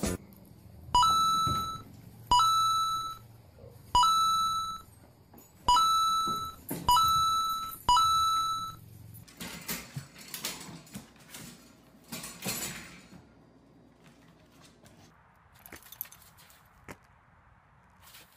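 Six loud, pitched dings at uneven intervals, each starting sharply and fading within about a second. After them come a few seconds of rattling and clattering, then faint scattered clicks.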